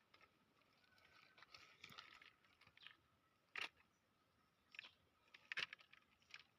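Near silence, with a few faint, brief clicks.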